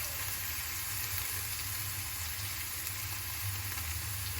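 Steady sizzling hiss from a pan of hot tempered oil (fenugreek, garlic, turmeric) with boiled fiddlehead ferns in it for pickle, still sizzling on residual heat after the gas has been turned off.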